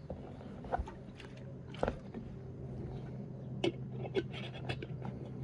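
Scattered small clicks, taps and scrapes of hands working on a packraft's fabric and repair materials, over a steady low hum.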